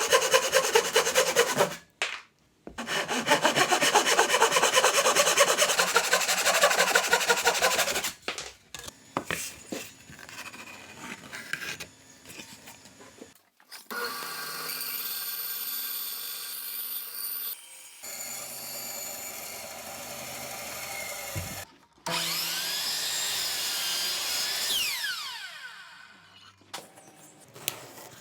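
Rapid back-and-forth strokes of a hand tool working wood, with a short break about two seconds in. This is followed by scattered knocks and then several steady, machine-like runs of a few seconds each, the last rising and falling in pitch.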